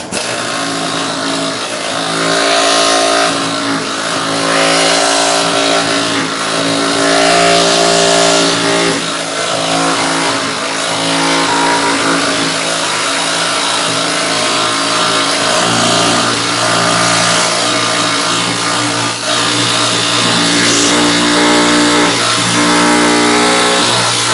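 Air-powered needle scaler on its lightest setting, hammering heavy undercoating off a car's steel underbody: a loud, steady buzz that starts abruptly, its pitch shifting a few times as the tool is worked.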